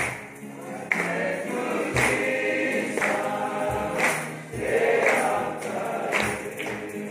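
A group of voices singing a gospel hymn together, with a regular beat struck about once a second.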